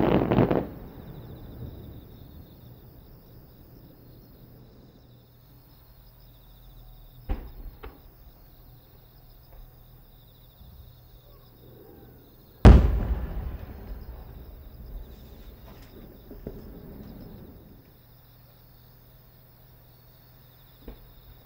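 Aerial firework shells bursting. It opens with a bang followed by crackling, then two smaller pops about seven seconds in. The loudest is a deep boom about halfway through that echoes away over a second or two, followed by fainter crackle and a last small pop near the end.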